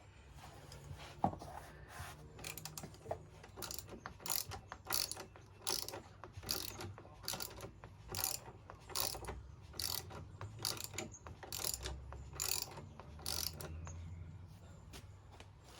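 Hand socket ratchet clicking in repeated short strokes, about two a second, as a front brake caliper bolt is unscrewed.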